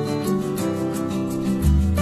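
Background music of plucked guitar notes, with a deep bass note coming in near the end.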